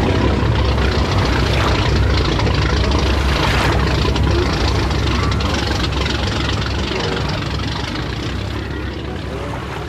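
Inboard motorboat engine running steadily with a deep low rumble, slowly fading toward the end.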